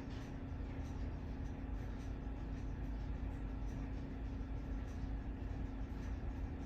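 Hampton Bay Huntington III ceiling fan running steadily, its motor giving a constant hum.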